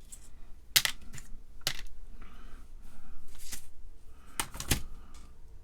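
Small parts handled on a workbench: a few sharp clicks and taps, with faint rustling between them, as TTL chips are picked out and set on the circuit board.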